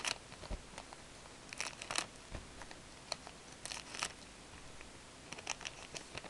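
Scissors cutting open a foil trading-card pack, the foil wrapper crinkling as it is handled. Short crackles and snips come in several clusters.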